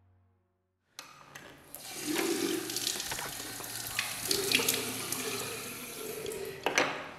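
Water running from a tap into a washbasin and splashing off cupped hands as a face is washed. It starts about a second in.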